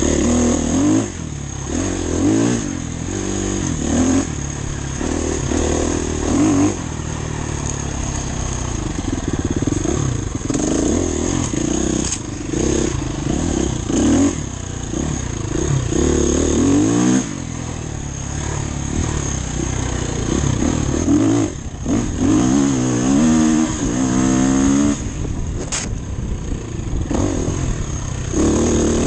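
Enduro motorcycle engine being ridden hard off-road, revving up and falling back again and again as the throttle opens and closes and the gears change.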